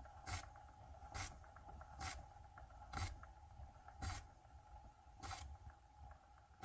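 Footsteps in slippers scuffing along a floor, about one step a second, slowing slightly toward the end.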